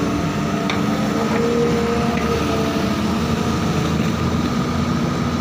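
Volvo excavator's diesel engine running steadily as the arm digs and swings, with a faint higher whine from the hydraulics coming and going, heard from the operator's cab.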